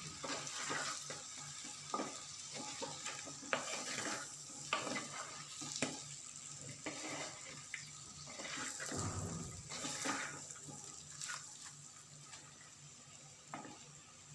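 Spatula stirring and scraping through chicken, tomato and spice powders in a pan, with short clicks against the metal over a light sizzle. The stirring strokes thin out after about ten seconds.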